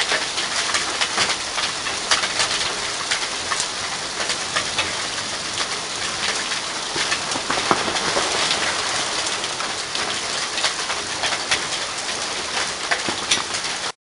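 Hailstones and rain pelting the ground, walkway and nearby surfaces during a hail storm: a dense, steady patter with many sharp ticks throughout.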